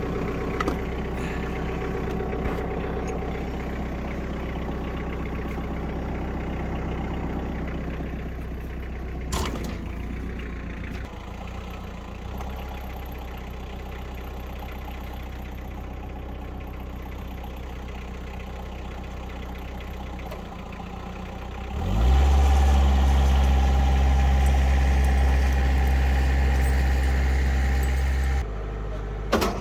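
Kioti tractor's diesel engine idling steadily, with a single knock about nine seconds in. About two-thirds of the way through, the engine note rises quickly and runs louder for about six seconds, then drops back, followed by a couple of clicks.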